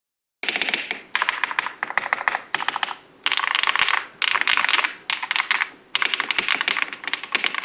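Fast typing on an Aula S65 mechanical keyboard, in quick runs of keystrokes broken by brief pauses. It starts abruptly about half a second in.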